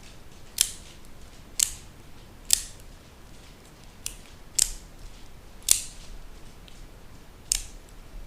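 OTF automatic knife blade firing out and snapping back, seven sharp clicks at uneven gaps of roughly a second. It is being cycled to test the action after cleaning and oiling.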